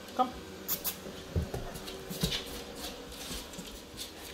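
Boxer dogs moving about on a laminate floor: a brief high whine about a quarter second in, then claws clicking on the floor and a few soft thumps of paws.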